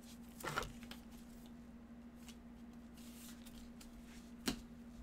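Gloved hands handling a trading card and its plastic sleeve: a short rustling scrape about half a second in and a single sharp click near the end, over a steady low hum.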